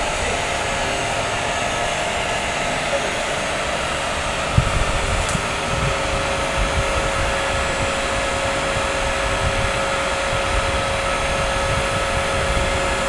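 Kilman diamond wire saw cutting concrete, its hydraulic power unit's electric motor and pump running as a steady mechanical noise with a held tone. A single knock about four and a half seconds in.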